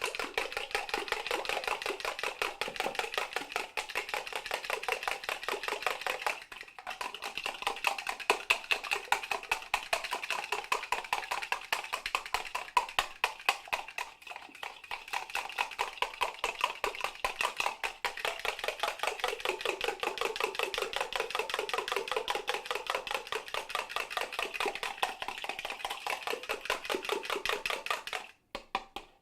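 Eggs being beaten in a plastic bowl: a rapid, steady run of clicking strokes of the utensil against the bowl, pausing briefly twice and stopping just before the end.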